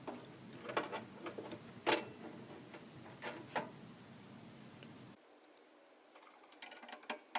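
Scattered light clicks and taps of cables and small hardware being handled while routing power wiring inside an LED display cabinet. The sharpest click comes a little under two seconds in, and a few more come near the end.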